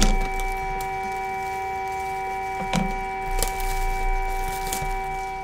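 Background music holding a sustained chord, with sharp clicks and taps from trading card packs and cards being handled, the loudest tap right at the start.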